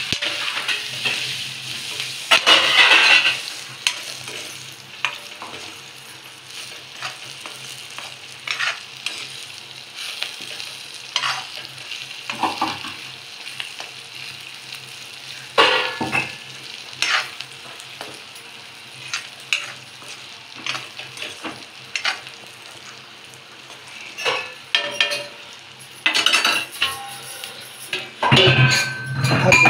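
Green chillies and masala frying in oil in an aluminium kadhai, a low steady sizzle under irregular scrapes of a metal spoon stirring against the pan, louder near the end.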